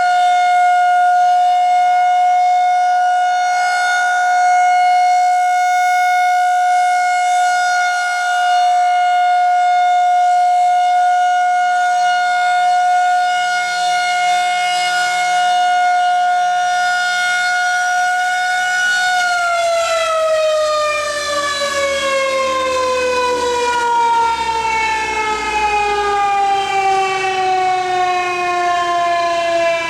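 Federal Signal 2001-130 electromechanical outdoor warning siren sounding a steady single-tone alert, its loudness swelling slightly as it rotates. About two-thirds of the way through the power cuts and the tone begins winding down, its pitch falling steadily.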